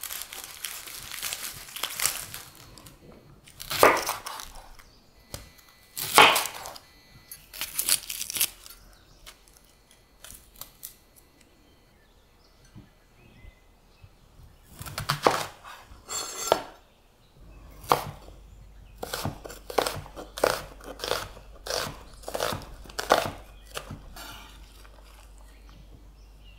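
Chef's knife working red onions on a wooden cutting board: the dry papery skins crackle and tear as they are trimmed and peeled, then a run of short, even slicing strokes through the onion onto the board, about two a second, in the second half.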